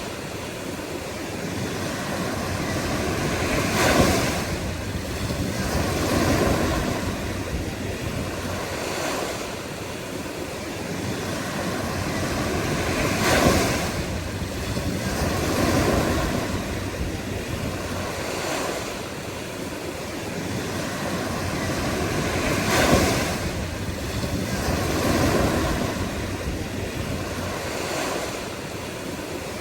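Ocean surf: waves washing in one after another every few seconds, rising and falling in a steady rush. The three biggest waves break sharply, about every nine to ten seconds.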